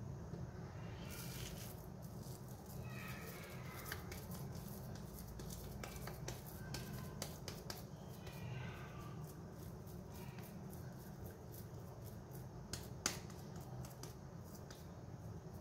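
Hands kneading and pressing sticky shami kabab mixture in a ceramic bowl and shaping it into a patty: many small wet clicks and squelches, with one sharper click near the end, over a steady low hum.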